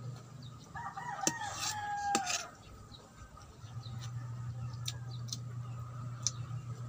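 A rooster crowing once, starting about a second in and lasting under two seconds, held and then falling in pitch at the end. A few sharp clicks sound around it.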